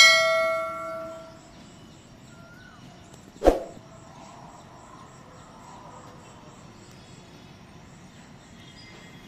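A subscribe-button sound effect: a bright bell chime right at the start, ringing out over about a second and a half, then a single sharp click about three and a half seconds in. Underneath is a faint, steady background.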